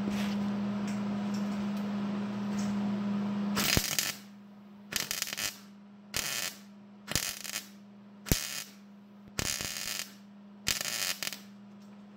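Welder laying short stitch welds on thin sheet steel: about seven brief bursts of crackling arc, each under a second, with short pauses between. For the first few seconds a steady hum runs, then stops as the welding begins.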